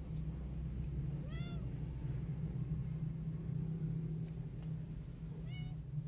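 A small kitten meows twice, two short high calls that rise then fall in pitch, about four seconds apart, over a steady low hum.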